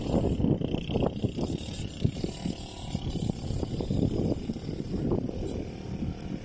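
150cc ATV engine running, an uneven low rumble.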